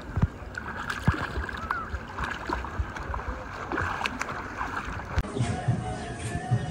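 Swimming-pool water splashing and sloshing around a swimming child, with many sharp little splashes. About five seconds in it cuts abruptly to a different, quieter background with faint music.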